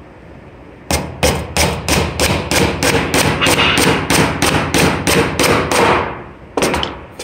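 A hammer driving a nail down through a wooden board into the post beneath, with a fast even run of blows, about three a second, starting about a second in and lasting some five seconds, then two last blows near the end.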